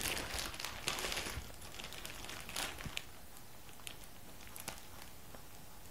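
Plastic packaging crinkling as a bagged T-shirt is handled, busiest in the first three seconds, then only a few faint ticks.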